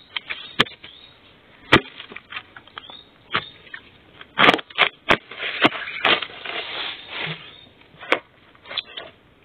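A digging spade chopping into soil and roots around a bamboo shoot, giving irregular sharp knocks about once a second, with dry bamboo leaves and loose earth crackling in between.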